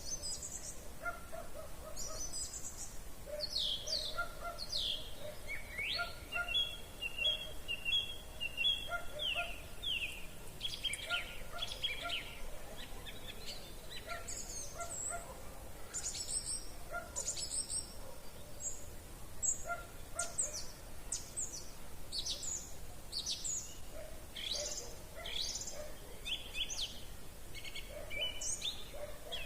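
Evening chorus of several songbirds singing at once: short, quick, high calls overlapping throughout, with a run of evenly repeated notes in the middle. Underneath, a fainter, lower call repeats on and off.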